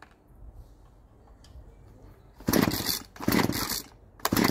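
Husqvarna 236 X-Torq two-stroke chainsaw being pull-started: three quick rips of the starter cord, the first about two and a half seconds in, without the engine catching.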